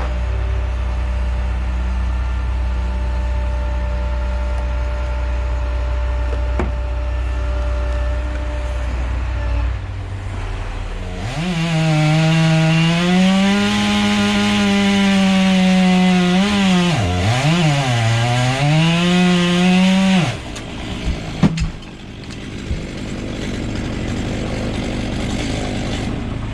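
A steady low engine drone, then about eleven seconds in a chainsaw cuts at full throttle for about nine seconds, its pitch dipping briefly as it bogs down in the wood before it recovers and stops abruptly. A few sharp knocks follow.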